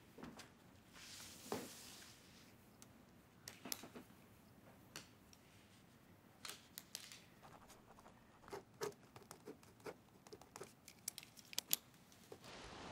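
A red pen writing Chinese characters on a small paper notepad: a string of faint, short scratches and ticks as each stroke is made.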